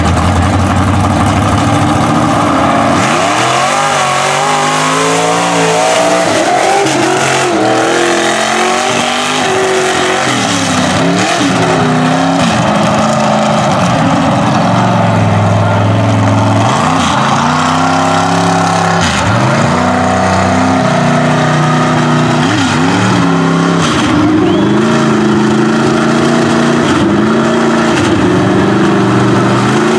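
Engine of a lifted Chevrolet mud truck on tractor tires, revved up and down over and over while the truck creeps along, with a sharp climb in revs near the end.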